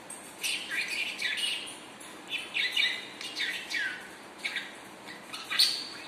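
Pet budgerigar chattering: a quick run of short chirps and falling warbled notes, then a single louder call near the end.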